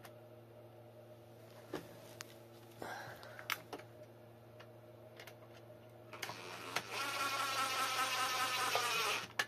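Cordless electric screwdriver whining for about three seconds as it drives a screw into the battery casing, starting a little past the middle and stopping sharply. Before it, a few light clicks of parts being handled.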